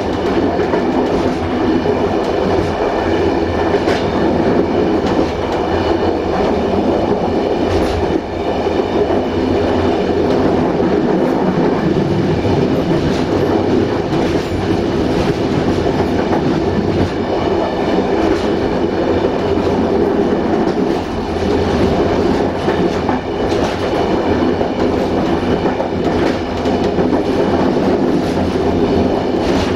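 Passenger train running at speed on jointed track, heard from on board: a steady rumble of wheels on rails with occasional clicks as the wheels cross rail joints.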